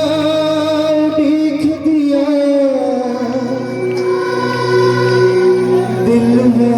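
Live Hindu devotional bhajan music with singing: long held notes, one sliding down about halfway through, over a steady accompaniment.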